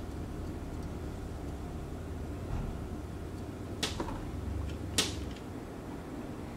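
Small repair tools handled on a silicone work mat: two sharp clicks about a second apart as tweezers are put down and a screwdriver is picked up, over a low steady hum.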